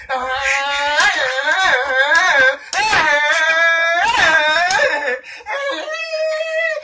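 A person wailing and crying in a high voice whose pitch wavers up and down, with a few brief breaks.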